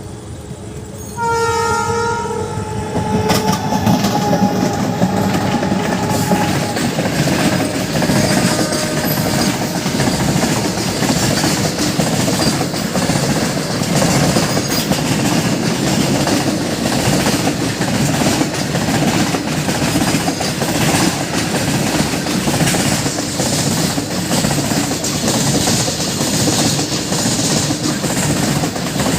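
A WAG-12 electric locomotive sounds its horn about a second in, a chord of several tones lasting about two seconds. A goods train then passes at speed: a loud, steady rumble of wagons with the rapid clickety-clack of wheels over rail joints.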